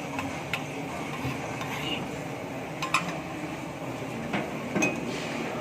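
A spoon stirring in a cooking pot of custard, clinking against the pot a few times: about half a second in, around three seconds, and twice near the end.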